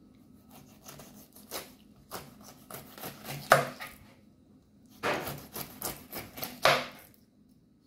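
Kitchen knife cutting down through a pineapple's rind onto a plastic cutting board: two bouts of short cutting strokes with a pause of about a second between them, the second bout starting about five seconds in.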